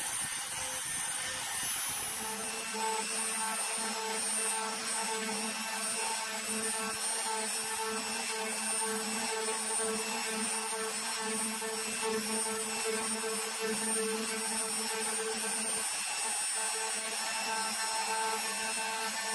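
Router spindle on a Mostly Printed CNC running steadily with a constant whine while its end mill cuts cast acrylic.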